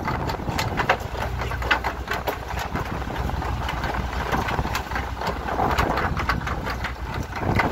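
Fishing boat's engine idling with a steady low hum, under scattered sharp clicks and knocks.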